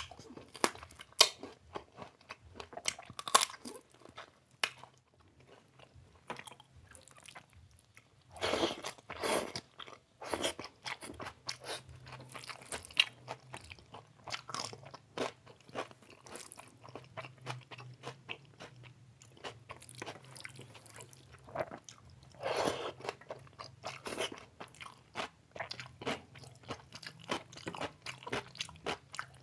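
Close-miked chewing and biting of chicken biryani and chicken curry, with irregular wet clicks and crunches and a few louder bites about a third of the way in and again near the end.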